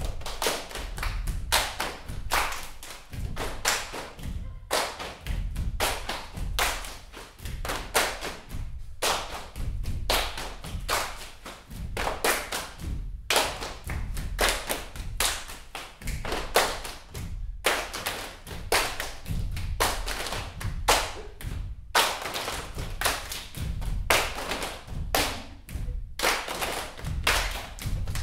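A group of people clapping and stamping their bare feet on a wooden parquet floor as they dance, with many claps and low thuds, several a second.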